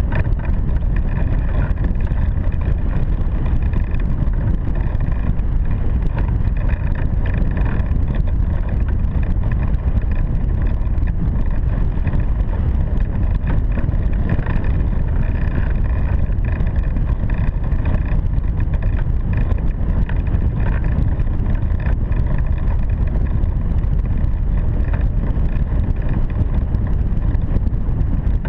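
Steady, loud rush of air over the microphone of a camera mounted on a hang glider in flight, heaviest in the low range. Faint steady high tones run through it.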